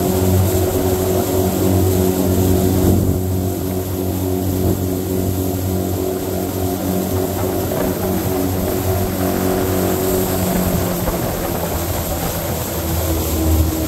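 Bass boat's outboard motor running at a steady speed while the boat travels across the lake.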